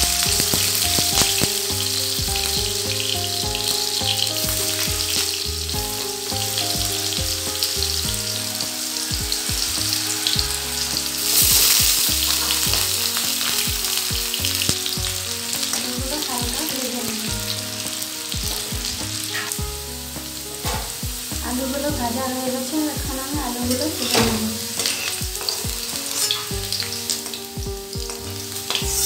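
Potato pieces frying in hot mustard oil in a metal kadai: a steady sizzle, with a metal spatula scraping and turning them now and then. The sizzle flares up loudly about eleven seconds in.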